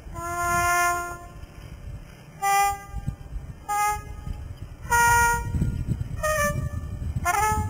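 A jazz horn playing a phrase of six separate notes: one long held note at the start, then shorter notes spaced about a second apart, the last ones bending in pitch.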